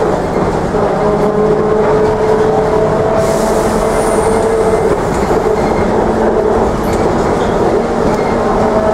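Interior of a Škoda 14 Tr trolleybus on the move: the electric traction drive gives a steady whine over the rolling noise and rattle of the body. A short hiss comes about three seconds in.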